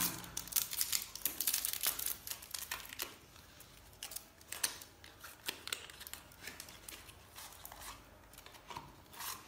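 A pack of playing cards being opened by hand: plastic wrapper crinkling and tearing with light clicks of card and cardboard, busiest in the first three seconds, then sparser.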